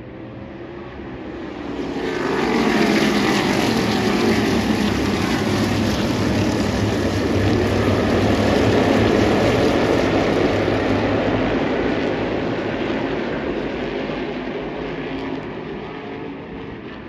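A pack of Tour Modified race cars' V8 engines passing close by. The sound swells about two seconds in, with engine notes gliding in pitch as cars go past, stays loud for several seconds, then fades as the field moves away.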